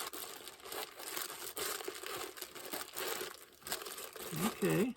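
Plastic packaging crinkling and rustling as it is handled and pulled open, in an irregular run of small crackles.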